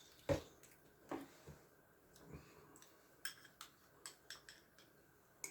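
Someone eating shredded-wheat cereal with milk: about ten faint, scattered clicks and soft knocks of spoon and chewing, the first the loudest.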